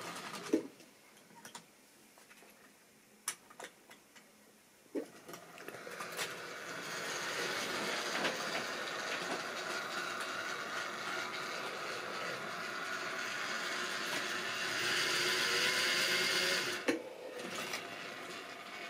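Model railway train running: a small electric motor whirring, with wheels rattling over the track. It builds up about five seconds in, runs steadily and is loudest near the end, then drops away after a click. A few sharp clicks come before it starts.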